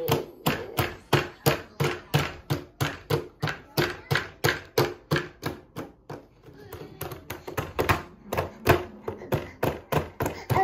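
Small hands slapping a milk-wet plastic high-chair tray in a quick, even run of about three or four slaps a second, easing off briefly about six seconds in.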